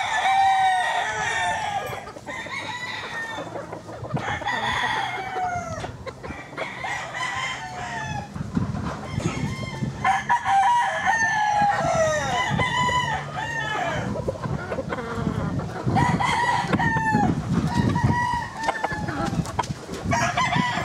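Chickens calling: roosters crow again and again, the crows overlapping one another, with clucking in between.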